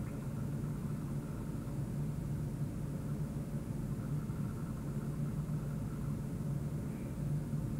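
Steady low rumble with a constant hum, unchanging and with no clear events.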